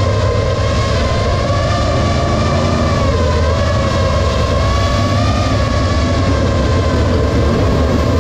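FPV racing quadcopter's T-Motor Velox V2 1950 kV motors and propellers whining steadily, the pitch wavering slightly as the throttle changes, over a low rumble from the sprint cars' engines.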